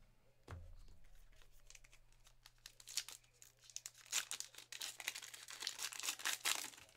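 A paper trading-card pack wrapper being torn open and crinkled in the hands. Scattered crackles grow into dense crinkling and tearing about halfway through, busiest near the end.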